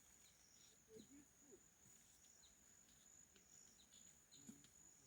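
Near silence: faint rural outdoor ambience with a steady high-pitched insect drone and a few faint distant voices.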